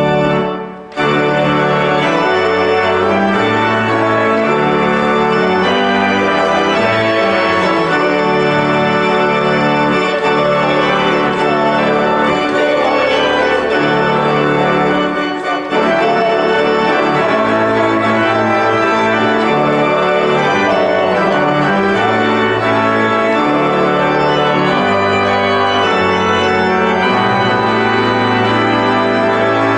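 Organ music: held chords over bass notes that step from one to the next, with a short break about a second in.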